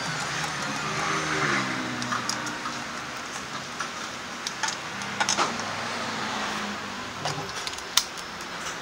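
Light metallic clicks and clinks of a hand tool and wheel nuts at a scooter's rear wheel, with one sharper clack near the end, over a steady background hiss.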